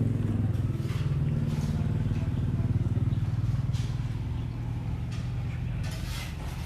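An engine runs steadily with a low hum that slowly fades, and a few faint clatters are heard over it.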